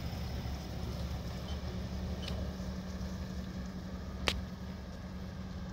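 Steady low outdoor rumble with a constant low hum, and a single sharp click about four seconds in.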